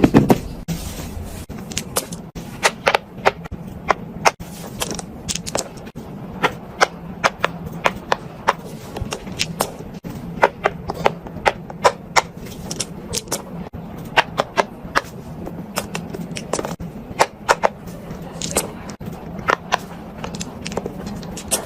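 Fingers pressing the bubbles of a silicone pop-it fidget toy, a long irregular run of sharp pops, some in quick clusters, over a steady low hum.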